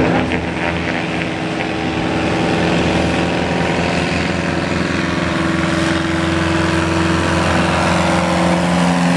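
Small single-engine floatplane at full power on its takeoff run across the water: a steady engine and propeller drone that grows slightly louder towards the end.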